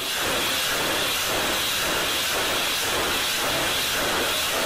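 Truck-mounted multiple rocket launchers firing a salvo: a steady rushing hiss of rocket motors launching, holding at an even level without a break.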